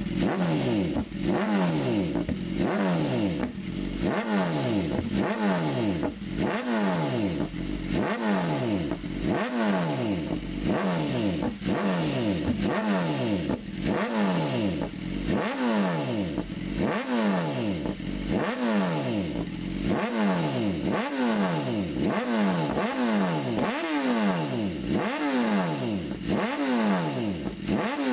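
BMW S1000RR inline-four engine revved through an aftermarket SC Project exhaust in repeated quick throttle blips, about one every second and a half. Each rev jumps up sharply and falls back toward idle.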